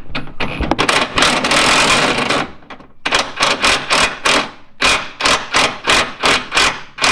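Cordless impact wrench running the lower nut onto a new sway bar link: one long run of about a second and a half, then short bursts about two to three a second as the nut is snugged.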